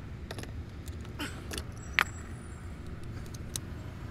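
Scattered light clicks and one sharp snap about two seconds in, over a steady low rumble: plastic trim parts being handled and clicked into place on a truck.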